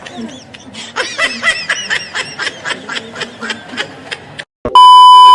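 Snickering laughter, a quick run of short laughs for about four seconds. Near the end, after a short gap, comes a loud, steady electronic beep that cuts off sharply.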